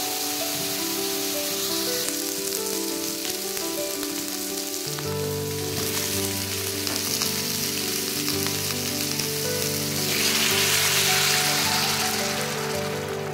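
Pork pieces sizzling in a hot non-stick wok, with cubed potatoes tipped in partway through. Near the end water is poured into the pan, setting off a louder hiss. Background music plays throughout.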